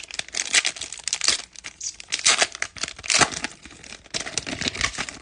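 Plastic wrapper of a baseball trading card pack crinkling and tearing as it is ripped open by hand, in a dense irregular crackle.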